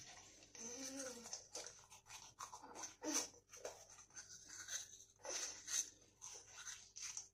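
A toothbrush scrubbing a toddler's teeth in short, irregular strokes, with one brief voiced sound about a second in.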